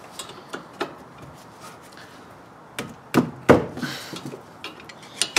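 Metal wrench clicking and knocking against the rear brake caliper while being fitted onto a caliper bolt: scattered light clicks, then a few sharper knocks in the second half.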